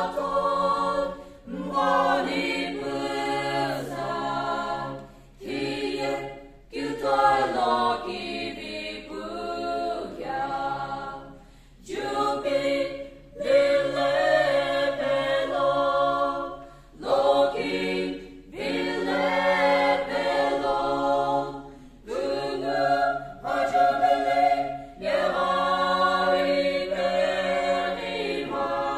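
Mixed choir of men's and women's voices singing unaccompanied, in phrases a few seconds long with short breaths between them.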